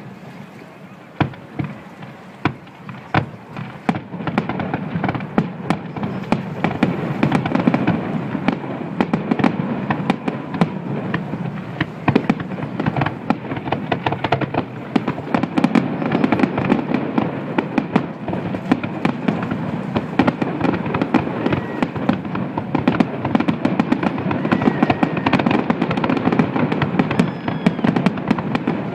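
Fireworks going off: a few separate bangs in the first few seconds, then a dense, continuous crackle of rapid pops that builds and keeps going.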